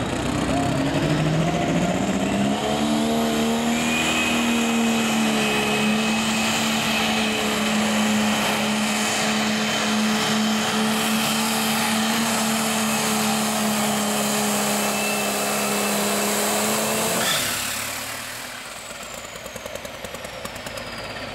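Super stock pulling tractor engine revving up over the first few seconds, then held at a steady, high pitch at full throttle while it drags the sled, with a thin high whine above it. About four seconds before the end the engine sound falls away sharply.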